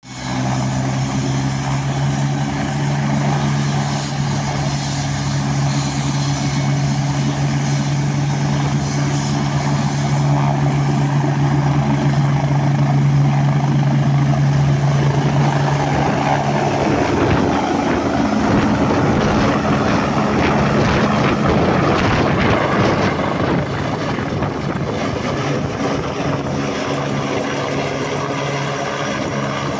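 Agusta A109 air-ambulance helicopter's turbines and main rotor running at take-off power, with a steady low hum and a high turbine whine. The aircraft lifts off and climbs away overhead, and about halfway through the sound turns coarser and noisier as the rotor blades pass overhead.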